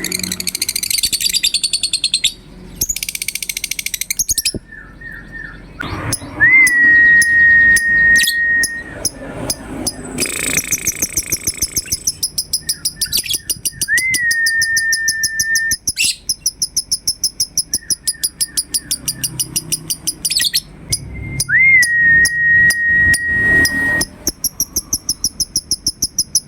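Lovebird ngekek: long runs of rapid, high chattering calls repeated many times a second, the kind of chatter used as a pancingan to set other lovebirds calling. Three times a steady drawn-out whistle note, opening with a quick upward flick and led in by a few short falling notes, sounds over the chatter.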